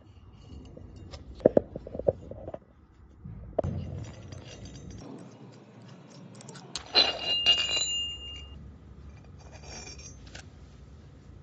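Stainless-steel mechanical seal parts being worked by hand: a few sharp clicks and scrapes of a steel pick and hex key against the seal housing. About seven seconds in, a metal part clinks and rings for about a second and a half.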